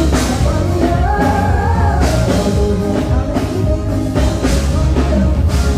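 Amplified band music through a PA at a sound check: a drum kit and heavy bass, with a sung melody gliding over them in the first two seconds.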